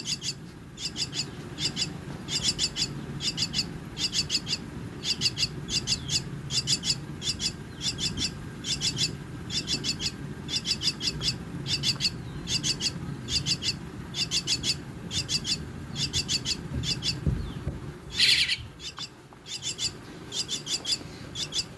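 Young Javan mynas calling: a steady run of short, high, rasping chirps in quick clusters, about one cluster every two-thirds of a second, with one louder burst about eighteen seconds in.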